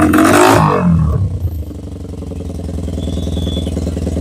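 TVS Apache RTR 160 4V's single-cylinder engine through an aftermarket hexagonal ('six cut') carbon-finish slip-on muffler. It is revved and the revs drop back about a second in, settling into a steady, even idle.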